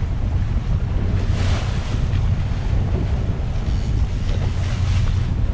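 Wind buffeting the microphone over water rushing and splashing along the hull of a boat under way, with a steady low rumble underneath. The spray noise swells about a second and a half in and again near the end.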